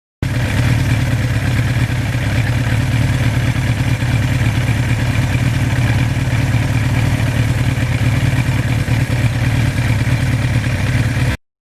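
1982 Suzuki GS1100E motorcycle's air-cooled inline-four engine running steadily under way, its low hum under a constant rush of noise. The sound starts and cuts off abruptly.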